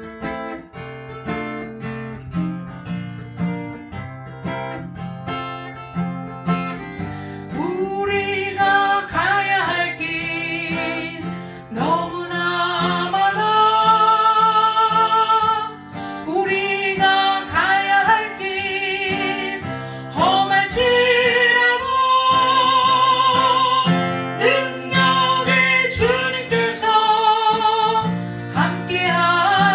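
Acoustic guitar strummed alone for about the first seven seconds, then a woman sings a Korean gospel song with vibrato over the strummed chords, a man's voice joining her at times.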